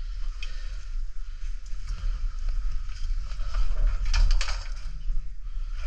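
Water sloshing and splashing with scattered knocks over a steady low rumble, growing louder about four seconds in.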